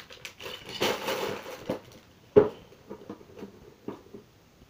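Rustling handling noise, then a single sharp knock about two and a half seconds in, followed by a few faint clicks.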